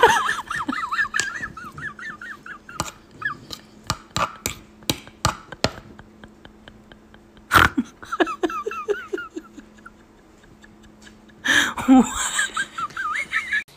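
A dog whining in high, quickly wavering cries, in three spells, with sharp clicks scattered between them and two louder bursts.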